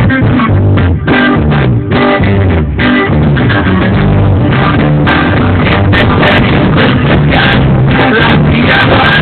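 Rock music with guitar, bass and drums.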